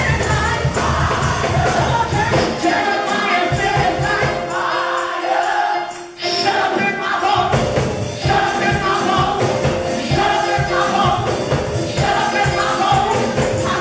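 Live gospel music: singing into a microphone with other voices joining, over a band keeping a steady beat. The low bass drops away for a couple of seconds near the middle, then comes back.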